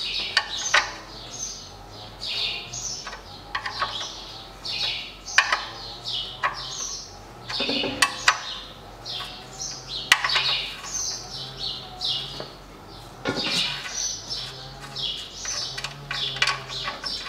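Birds chirping over and over throughout, with a few sharp clicks and knocks from hand work at a car's oil drain plug standing out as the loudest sounds.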